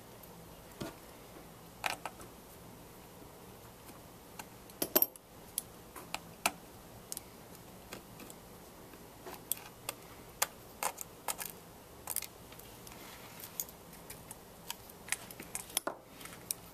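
Scattered small clicks and taps of a small screwdriver and tiny screws against an iPhone 5's metal housing as the logic board screws are taken out, with a louder cluster of clicks about five seconds in.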